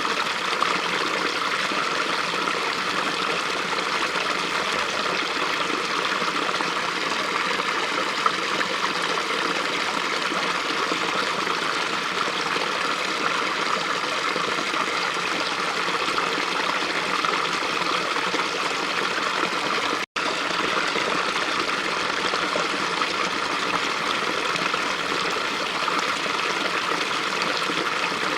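A small brook running steadily, an even babble and rush of water that drops out for a split second about twenty seconds in.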